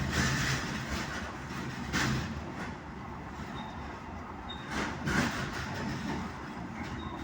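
Siliwangi passenger train running, heard from on board: steady rumble of wheels on the rails, with swells every second or two and a couple of faint, brief high wheel squeals midway.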